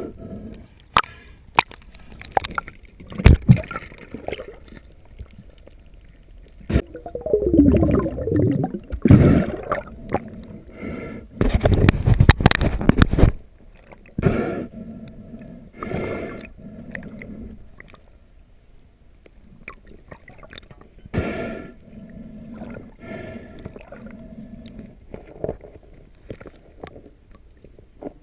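Water gurgling and sloshing in irregular swells, with a few sharp knocks.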